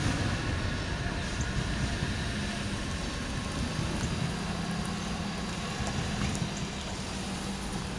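Road vehicles, a pickup truck and then a car, driving across a railroad grade crossing, their engines and tyres steady over the low rumble of a freight train rolling away.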